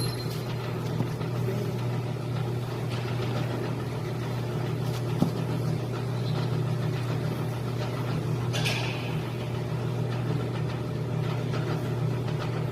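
Motor of a young-radish (yeolmu) cutting machine running with a steady hum. A brief hiss-like noise comes about nine seconds in.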